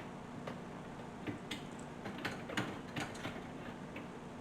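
Dishwasher's wire rack and its plastic wheels clicking and rattling lightly as the rack is worked back onto its track rails: a scatter of faint, irregular clicks.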